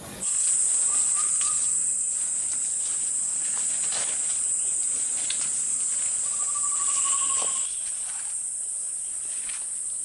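A steady, high-pitched shrill of forest insects, which shifts slightly higher and a little quieter about three-quarters of the way in. A bird gives a short trill about a second in and a longer, slightly falling one about six seconds in, with a few soft snaps of footsteps on leaf litter.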